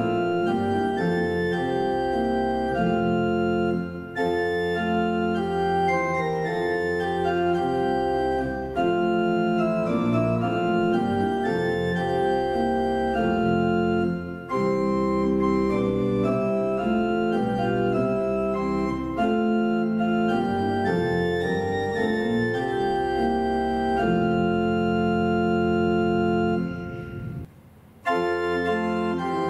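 Church pipe organ playing a slow piece of sustained chords, phrase by phrase, with short breaks between phrases about 4 and 14 seconds in and a brief near-silent pause near the end before it plays on.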